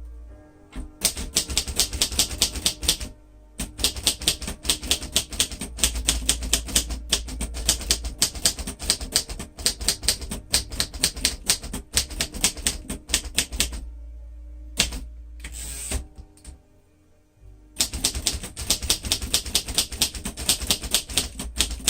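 1947 Royal Quiet Deluxe manual typewriter being typed on: quick runs of key strikes, several a second, broken by short pauses, the longest about two-thirds of the way through.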